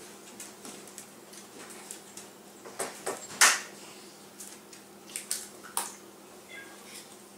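Sharp taps and clicks of eggs being cracked against a plastic mixing bowl and the shells handled, a few at a time, the loudest about three and a half seconds in.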